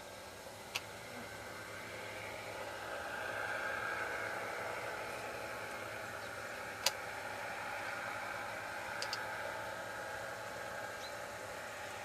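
Two-stroke paramotor engine running in flight overhead, a steady distant hum that grows louder a few seconds in and then eases a little. A few sharp clicks, the loudest about seven seconds in.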